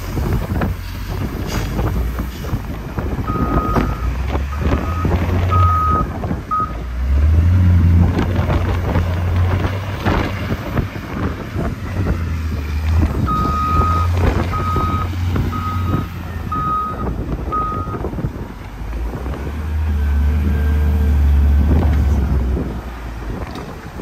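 A heavy vehicle's engine rumbling, swelling and easing. Its reversing alarm beeps about once a second in two runs: a few beeps several seconds in, and about five more around the middle.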